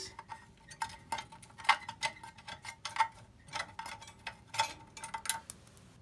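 Irregular light metallic clicks, a few a second, some with a brief ring, as an Allen key is turned in short strokes to unscrew a bolt from an electric scooter's hydraulic disc brake caliper.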